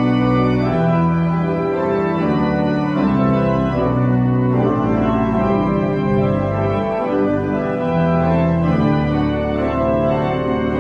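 Pipe organ playing a hymn tune in sustained chords that change about once a second.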